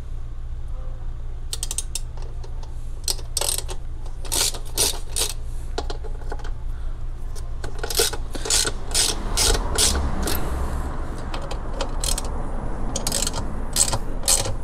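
A ratchet wrench with a T30 Torx bit clicking in short runs as the bash plate bolts are loosened one after another, over a steady low rumble of traffic.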